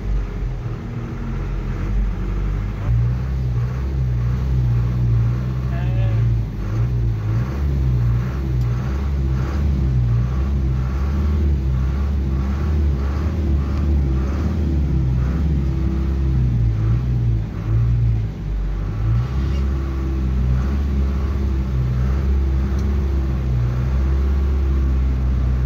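Low, steady rumble of a car driving slowly through a flooded street, heard from inside the cabin. From a few seconds in until about two-thirds of the way through, a regular beat repeats roughly every three-quarters of a second.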